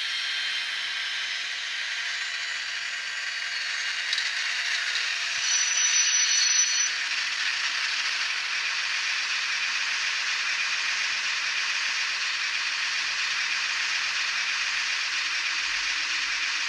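N-scale Fleischmann V110 model diesel locomotive running, its Doehler & Haass SD10A sound decoder playing diesel engine sound through a tiny speaker along with the model's mechanism noise. A brief louder, high-pitched sound comes about six seconds in.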